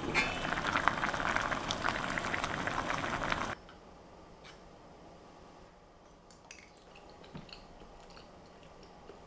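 Liquid boiling and bubbling hard in a covered stainless steel pot, a dense crackling noise that cuts off abruptly about three and a half seconds in. After it, only a few faint clicks of a spoon against a ceramic bowl.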